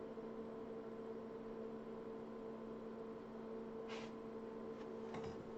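Steady electrical mains hum with faint hiss, and a single brief click about four seconds in.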